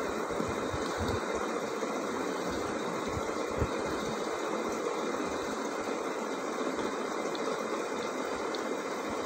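A steady, even mechanical running noise, like a motor, with one short knock about three and a half seconds in.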